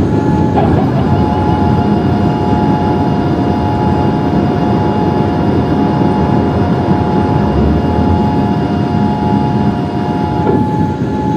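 Boeing 787 Dreamliner cabin noise during the climb after takeoff: a loud, steady rush of jet engines and airflow, with a steady whine over it.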